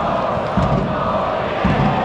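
Massed football supporters chanting in unison from the terraces, with a regular low beat under the singing.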